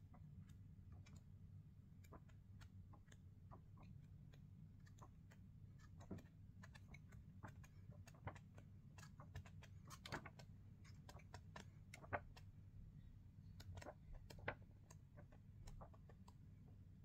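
Faint, irregular clicks and crinkles of paper as the pages of a paperback coloring book are handled and turned, a few sharper clicks in the second half, over a low steady hum.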